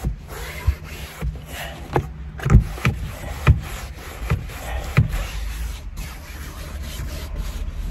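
A hand pressing and patting the fabric of a car's freshly re-glued headliner: several soft taps and rubs in the first five seconds, over a low rumble.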